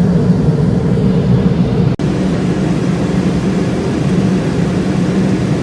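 Steady cabin noise of a Boeing 747-400 airliner in flight: a low, even rumble of engines and airflow, broken for an instant about two seconds in.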